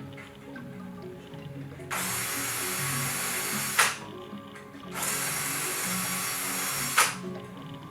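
A hand-held power tool runs in two bursts of about two seconds each, each ending with a sharp click, over quiet background music.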